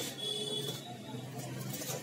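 Packing tape being picked and peeled by hand from the edge of a cardboard box, with a steady high squeal through the first moments, then soft scratching and rustling of the wrapping.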